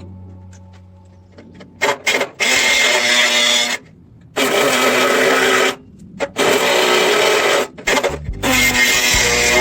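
Electric power tool working on sheet metal, run in four bursts of about one to two seconds each with a steady motor whine and harsh grinding noise, stopping briefly between bursts.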